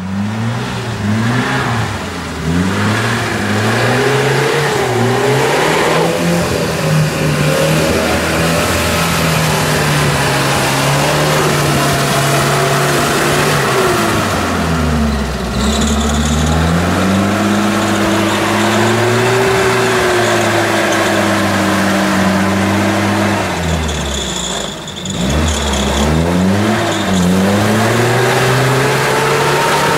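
A lifted 4x4 off-roader's engine revving hard through deep mud and water, its pitch rising and falling with the throttle. Twice, about halfway through and again near the end, the revs drop sharply and then climb back up.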